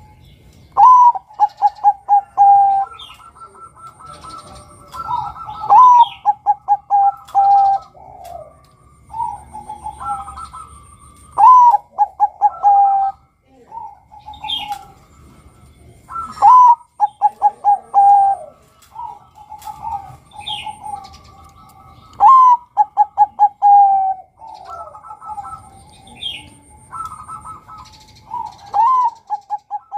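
Male Bangkok-bred zebra dove (perkutut) cooing: six phrases, about one every five to six seconds, each a rising opening note followed by a quick rolling run of coos. Other small birds chirp and trill faintly in the background.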